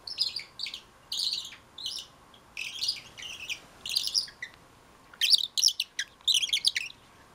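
Twist-type bird call, a small red cylinder with a metal plug, twisted back and forth to make short squeaky bird-like chirps. The chirps come in about ten quick bursts with short pauses between them, and they come closer together from about five seconds in.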